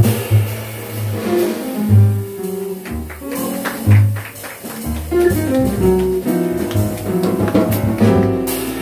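Live jazz quartet playing together: plucked upright double bass, piano, archtop electric guitar and drum kit with cymbals.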